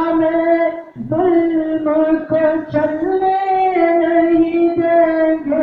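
A tarana sung in long held notes that step slightly up and down in pitch, with a short break for breath about a second in.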